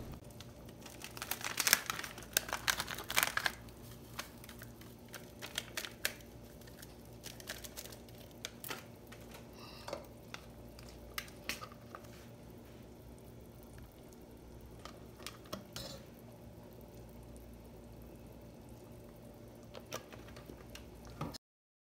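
Plastic packet crinkling as it is handled, in a cluster of crackles about a second in, followed by sparse small clicks and taps over a faint steady low hum.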